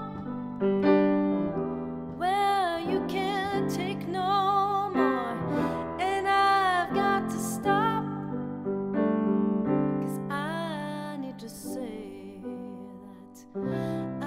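A woman singing solo with vibrato on held notes, accompanying herself on a grand piano. The piano chords ring on between her phrases. Near the end the sound dies away, then a new, louder chord comes in.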